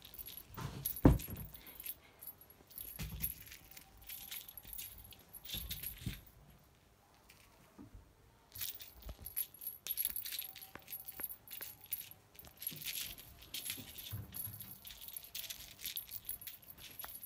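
Small jingling rattle of a kittens' play toy being batted about, in irregular bursts with a pause about halfway, and a single dull thump about a second in.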